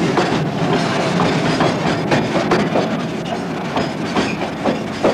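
Loaded freight train of tarp-covered wagons rolling past at close range: a steady rumble with the wheels clacking and knocking over the rail joints, and a few faint wheel squeals.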